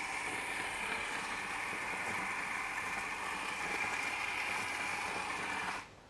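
Mazzer Kony electronic conical-burr espresso grinder running a timed grind of coffee beans into a dosing cup. It makes a steady grinding noise that stops suddenly near the end as the 7.35-second grind timer runs out.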